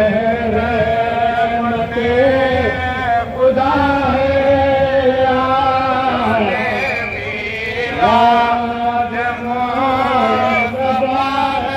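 Devotional chanting sung by one voice in long, held, wavering notes and played loud through a street loudspeaker. The line slides down and breaks off about six seconds in, then resumes.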